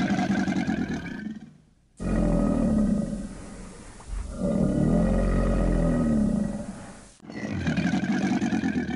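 Deep, drawn-out animal roars, the roar sound effect given to the crocodile, coming in about four long bouts that break off abruptly between them.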